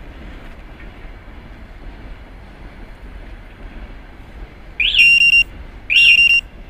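Motorcycle alarm siren going off on an armed Stels Delta 200: after a few seconds of low background noise, two loud electronic whoops about a second apart near the end, each a quick rising sweep that settles into a held high tone.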